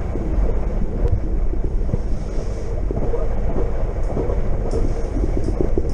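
Passenger train running at speed, heard from inside the carriage: a steady low rumble of wheels on rails.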